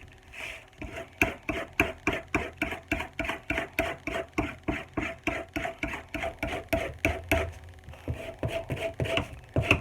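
Serrated steak-knife blade drawn back and forth through a Block knife sharpener in quick, even strokes, about three to four a second, each a short scrape with a faint metallic ring.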